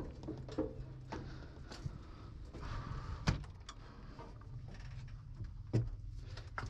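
Knocks and clicks of someone climbing onto a combine harvester's metal platform and opening and shutting its cab door, with a sharper knock a little past three seconds in and another near six seconds. A low steady hum sits underneath.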